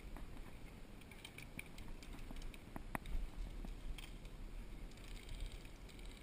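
Scattered sharp ticks and clicks, with one louder knock about three seconds in and a cluster of faint ticks near the end, over a steady low rumble of wind and handling noise on a body-worn GoPro action camera.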